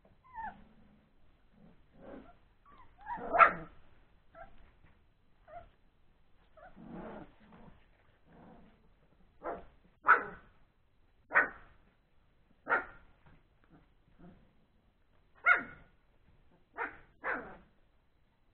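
Three-week-old Old English Sheepdog puppies giving short, high yips and little barks, one at a time with pauses between, about a dozen calls in all. The loudest come in the second half.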